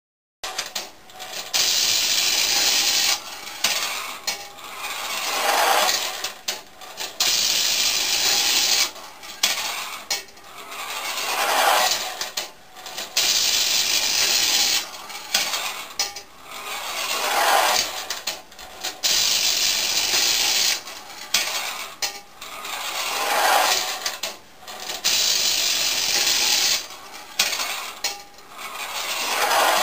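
Clockwork tinplate mountain railway toy running: the wind-up tram's mechanism and tin wheels make a loud grinding whirr along the tin track. The sound swells and fades in a cycle repeating about every six seconds as the tram runs back and forth, with brief drops and clicks between the loud stretches. It starts about half a second in.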